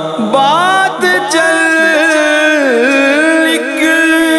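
Naat singing: a male voice sings a long wordless phrase whose pitch slides and curves up and down, over a steady held drone.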